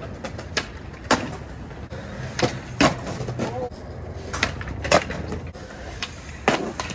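Skateboards rolling on concrete with a low rumble, broken by about seven sharp wooden clacks of boards popping and landing.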